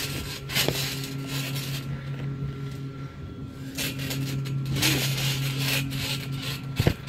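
Bodies scuffing and thudding on a trampoline mat during grappling, with a sharp knock near the end. A steady low hum runs underneath.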